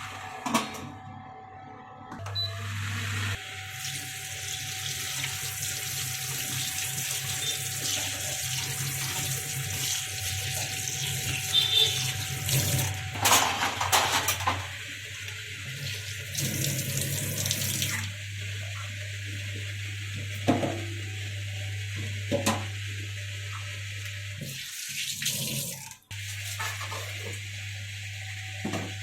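Water running from a kitchen tap into a sink as a steady hiss, heaviest for the first half and lighter afterwards. Several short knocks sound through the second half.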